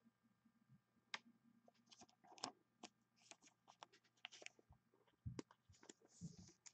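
Faint, scattered clicks and short rustles of hands handling a trading card and its clear plastic holder.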